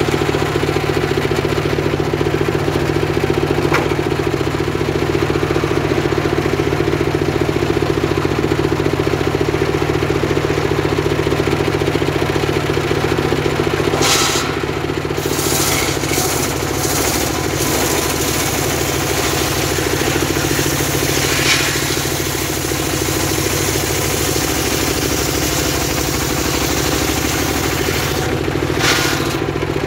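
Homemade engine-driven circular saw bench running steadily while very hard timber is ripped into planks. The engine drone goes on throughout, and several brief clatters come from about halfway through.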